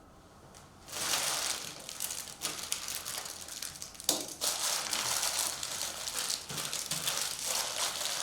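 Crinkling of trading card pack wrappers being crumpled and handled, starting about a second in, with a sharp click about four seconds in.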